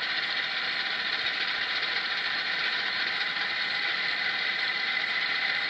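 Model-railway sound decoder in a model of the Fell diesel locomotive playing its engines running, through the model's small speaker: a steady mechanical running sound with little bass, as the fourth main engine is brought in during the start-up sequence.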